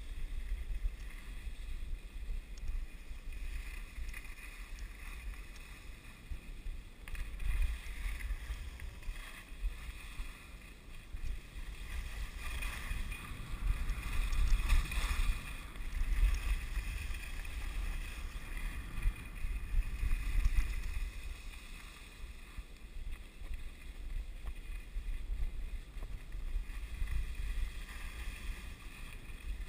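Wind buffeting a body-worn camera's microphone as a skier glides downhill, a heavy rumble, with the hiss and scrape of skis on snow that swells and fades through the turns.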